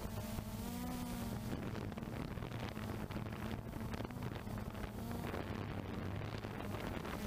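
Blade 350 QX3 quadcopter's brushless motors and propellers humming steadily as it lifts off and climbs, heard close up from the camera on board, with slight wavering in pitch as the motors adjust.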